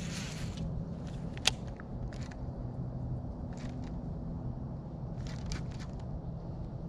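A steady low mechanical hum from the bass boat, with a few light clicks and ticks as a baitcasting reel is cast and reeled in.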